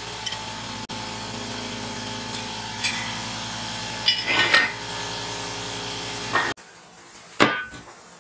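Metal clinks and taps as a motorcycle drum-brake shoe assembly and its spring are handled on a steel hub, with a quick cluster of clinks about four seconds in, over a steady hum that cuts off abruptly after about six and a half seconds. Near the end comes one sharp metallic knock from a welded steel frame on a workbench.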